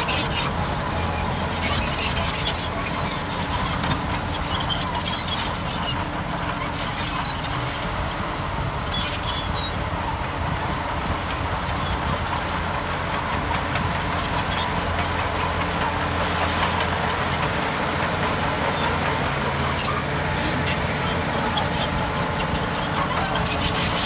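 Shantui DH17B2 crawler bulldozer at work: its diesel engine runs steadily under load, with squealing from the steel tracks.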